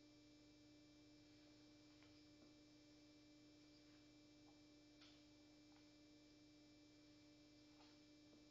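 Near silence: a faint steady hum, with a few faint ticks.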